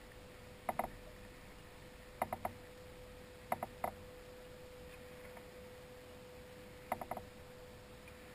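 Quiet clicks and taps in four short clusters of two or three, from the fishing reel and kayak while a salmon is played on the line, over a faint steady hum.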